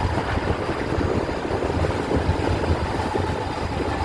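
A boat's motor running steadily, a constant low rumble.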